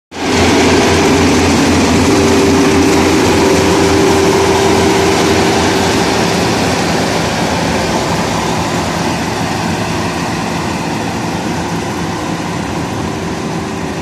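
Rice combine harvester running steadily as it cuts and threshes the crop: a continuous engine drone with a held steady hum. It is loudest at first and slowly fades as the machine moves away.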